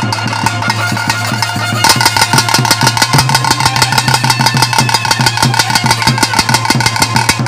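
Traditional ritual drumming: fast, dense strokes over held high tones and a steady low hum. About two seconds in, the drumming turns louder and brighter.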